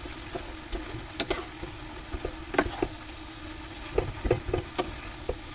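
Wooden spoon stirring and tossing noodles in a nonstick frying pan, with irregular knocks and scrapes of the spoon against the pan, a cluster of them near the end, over a faint sizzle from the hot pan.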